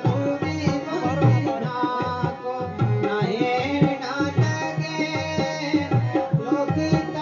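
Live Gojri folk song: a harmonium's held chords and a singing voice over a steady hand-drum beat.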